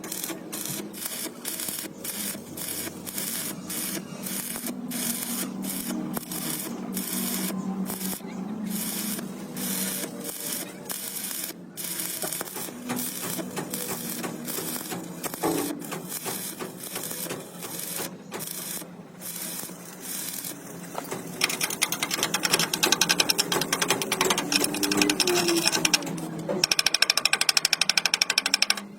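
Rapid mechanical clicking from metalworking on a steel frame, about three clicks a second. About two-thirds of the way through it turns into a faster, louder rattle that stops and starts.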